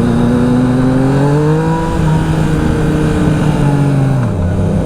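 Yamaha XSR900's inline three-cylinder engine breathing through a full Akrapovic exhaust, revved gently: the pitch rises over the first couple of seconds, holds, then drops back toward idle about four seconds in.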